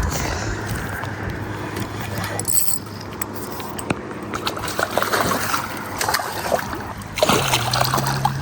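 A hooked channel catfish being landed: water splashing and sloshing, with scattered clicks and rattles of tackle. The splashing is heaviest in the second half.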